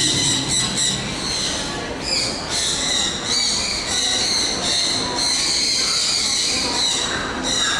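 Birds squawking and chirping in a near-continuous, high-pitched chorus with short breaks, over general hall noise.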